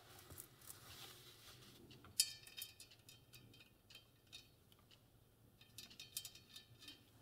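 Faint small metallic clicks of steel wheel spokes and spoke nipples being handled while a wheel is laced, with two brief ringing clinks, about two seconds in and again near the end.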